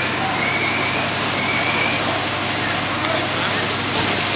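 Steady hissing rush of fire-hose water jets and a burning house, over the low steady hum of fire engines running. A short high tone repeats about once a second for the first two seconds.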